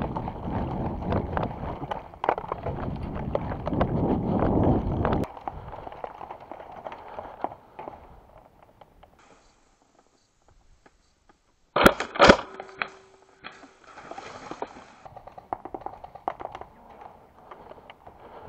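Loud rustling and handling noise with many small clicks, cutting off abruptly about five seconds in. After a near-silent stretch come two sharp bangs about half a second apart, about twelve seconds in, followed briefly by a steady tone and fainter rustling.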